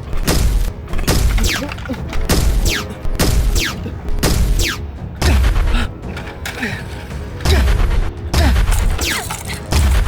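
Movie-style gunfire sound effects: about ten loud bangs at irregular spacing, each with a deep thud, several trailed by a falling whistle, over action music.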